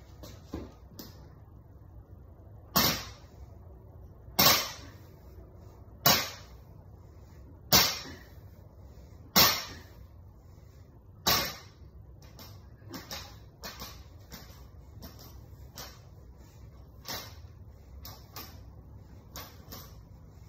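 Plate-loaded barbell touching down on the floor between lifts: six loud thuds about every one and a half to two seconds, each with a short ring. After that come lighter clinks and knocks of the bar and plates as the lifts go on.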